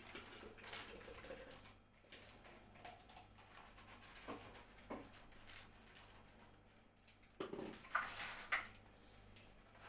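Faint crinkling and rustling of a greasy lining sheet being peeled off a baked gratin, with a few small ticks in the middle and louder crinkles near the end as the sheet is pulled away.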